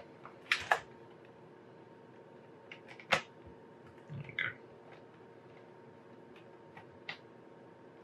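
A few short clicks and scrapes of a small precision screwdriver at a keyboard retaining screw in the plastic base of an HP Compaq Presario CQ56 laptop, with a brief rubbing sound about four seconds in. The screw is not biting.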